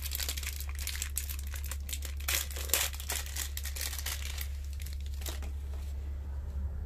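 Plastic crinkling and tearing as hands work on a replacement ink cartridge, dense for about four and a half seconds and then dying down to a few faint clicks. A steady low hum runs underneath.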